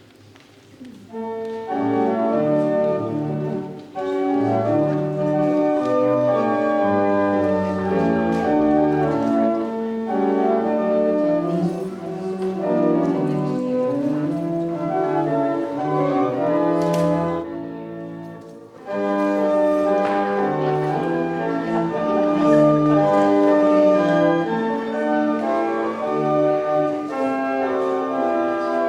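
Church pipe organ playing a closing voluntary in full chords with deep bass notes, starting about a second in; it eases off briefly about two-thirds of the way through, then comes back in strongly.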